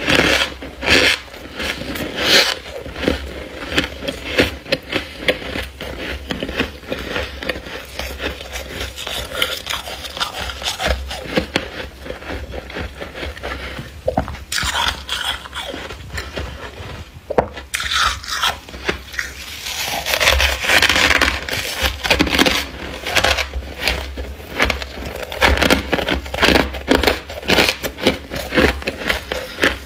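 Thick frost build-up inside a freezer being scraped and broken off, giving rapid, irregular crunching and crackling with scraping strokes.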